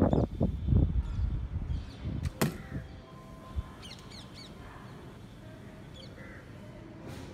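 Outdoor ambience with wind buffeting the microphone for the first second or so, one sharp snap about two and a half seconds in, and birds chirping and calling.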